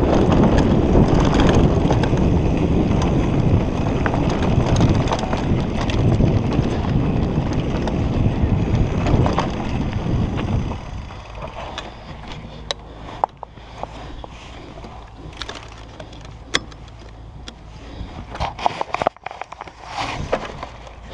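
Mountain bike riding fast down a dirt trail: tyres rumbling over the dirt, the bike rattling and wind on the microphone. About ten seconds in the noise drops away as the bike slows and stops, leaving scattered clicks and knocks.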